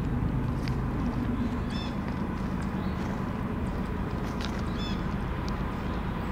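Freight train rumbling steadily, with light clicks and two short high squeaks, one about two seconds in and one near five seconds.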